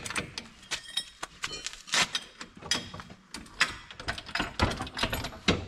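Irregular metallic clinks and knocks of hand tools and steel parts being handled, several a second, some with a brief ring.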